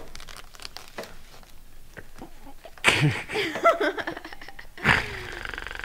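Faint crinkling and clicking of a plastic snack bag, then a young woman bursting into loud laughter about three seconds in, with another short burst near the end.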